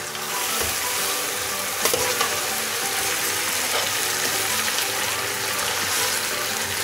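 Marinated chicken pieces sizzling as they sear in hot ghee and onions in an aluminium pot, stirred with a metal spoon that scrapes against the pot now and then.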